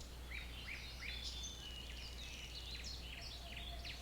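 Small birds chirping and singing, with many short, quick high chirps and whistles overlapping, over a faint steady low hum.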